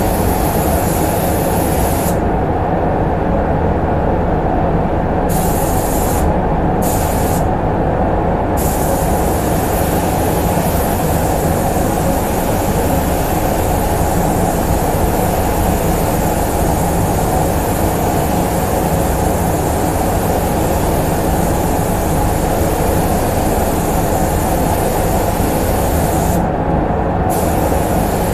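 Gravity-feed air spray gun hissing as paint is sprayed. The hiss stops for about three seconds a couple of seconds in, twice briefly soon after, and once near the end, as the trigger is let go. Under it runs the steady rumble of the spray booth's ventilation.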